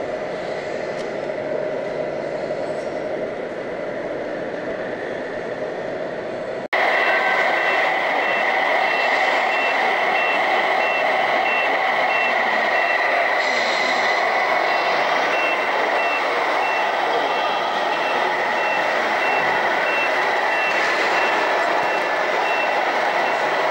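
A truck reversing beeper sounding in a steady on-off pattern over a continuous mechanical hum, from the electronic sound units of radio-controlled model trucks. The sound breaks off and comes back louder about a quarter of the way in.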